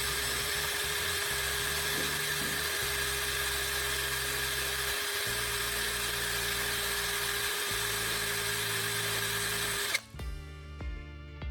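Small power tool spinning a sandpaper disc while a battery's carbon rod is ground against it to a point, a steady whine with hiss that cuts off suddenly about ten seconds in. Background music plays underneath.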